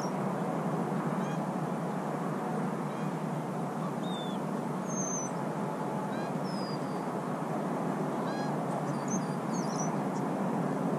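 A flock of geese honking faintly in scattered short calls over a steady background hiss.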